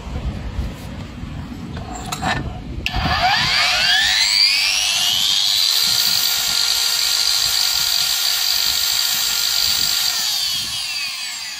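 Brushless wall chaser's motor and blade, after a few knocks, spinning up with a rising whine about three seconds in, running steadily at full speed, then switched off and winding down with a falling whine near the end. This is the test run after a new bearing and bearing seat were fitted; the blade no longer wobbles.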